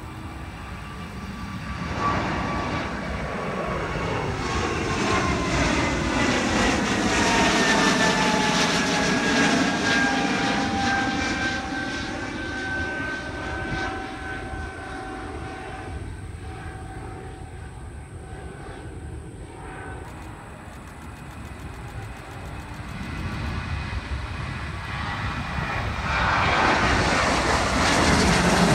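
Jet airliners flying by low. The engine noise swells and fades, with a whine that falls steadily in pitch as one jet passes overhead. Near the end the engine noise of a Boeing 737-800 climbing out on take-off builds up.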